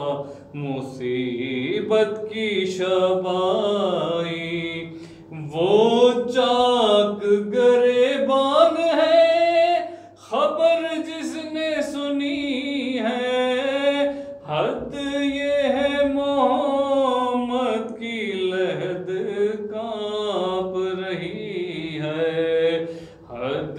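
A solo male voice chanting a slow, melodic devotional recitation without instruments, its long held lines rising and falling, broken by a few short pauses for breath.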